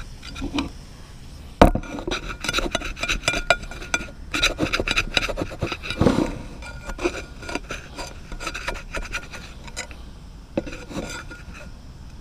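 A spatula scraping and scratching at the bottom of a frying pan, working loose a pancake that is stuck to the pan, with a sharp knock a little under two seconds in.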